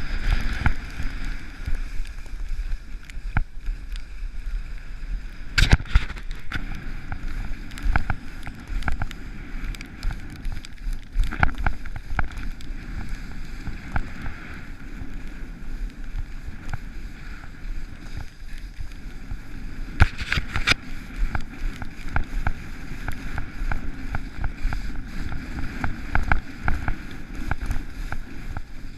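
Skiing or riding down a snow slope: a steady scraping hiss of edges on snow, with wind rumbling on the microphone and scattered knocks and clicks, the sharpest about six seconds in and again around twenty seconds.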